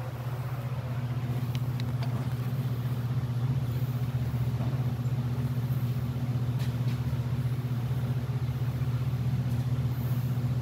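A vehicle engine idling: a steady low hum that holds one pitch without revving.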